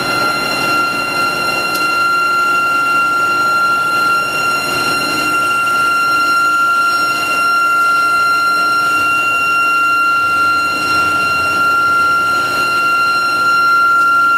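Medium-frequency induction heating coil of a hot pipe-expansion machine giving a steady high-pitched whine with fainter overtones above it, over a constant wash of machinery noise as the steel pipe is heated and fed through.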